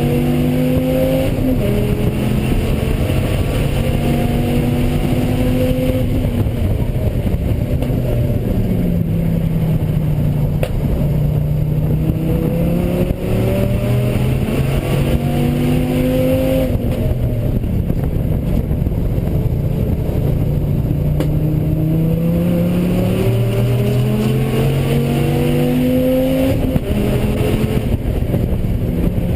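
Dodge Viper ACR's V10 engine under hard acceleration on track. Its pitch climbs and then drops sharply at each shift or lift, many times over. The car is running with a misfire.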